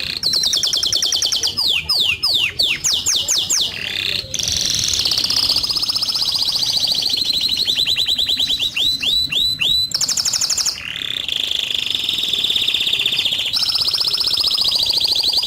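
Background soundtrack of high-pitched rapid trills and quick falling whistled sweeps, chirpy and bird-like, going on without a break.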